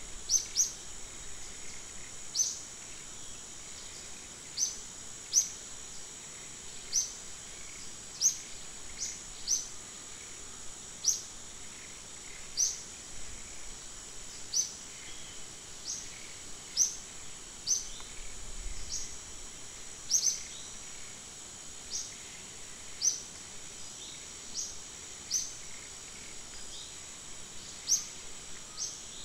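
Outdoor insect drone, a steady high-pitched buzz, with short sharp high chirps repeating irregularly about once a second.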